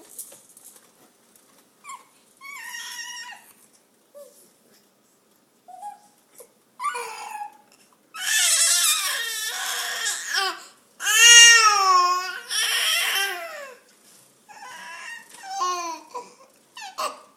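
Baby's wordless high-pitched vocalizing: a string of squeals and wails with short pauses between them. The loudest and longest call comes about eleven seconds in and rises and then falls in pitch.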